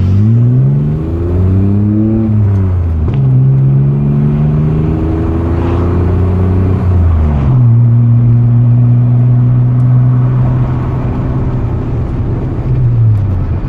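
Car engine accelerating through the gears: the revs climb, drop sharply at a gear change about three seconds in, climb again, then drop at another shift past the middle and hold steady at a cruise, easing off slightly near the end.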